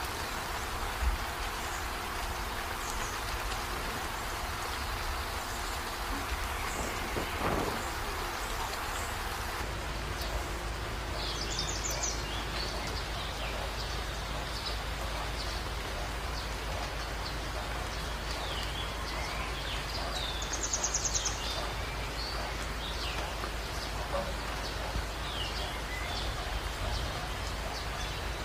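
Steady rain-like hiss, with a few short high chirps about twelve and twenty-one seconds in.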